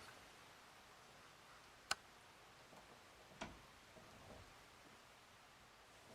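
Near silence in a quiet room, broken by one sharp click about two seconds in and a softer knock about a second and a half later.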